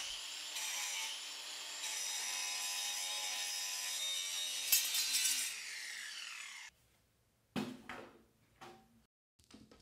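Cordless angle grinder cutting into the metal body of a Bilstein 8112 monotube coilover shock: a high whine over a dense grinding hiss that stops abruptly about two-thirds of the way through. A few faint knocks follow.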